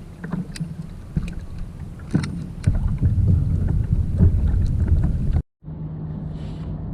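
Wind buffeting the microphone on a kayak on open water, with scattered knocks and clicks of handling against the hull. The rumble grows louder about halfway through. Near the end the sound cuts out for a moment and is followed by a steady low hum.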